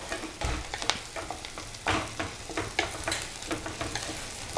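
Onions, garlic, green chillies and curry leaves sizzling as they fry in oil in a small pan, stirred with a wooden spatula whose strokes make short scrapes and taps against the pan.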